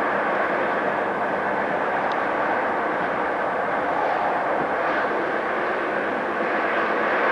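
Electric train running, a steady rushing noise of wheels on rail, with a brief faint high squeak about two seconds in.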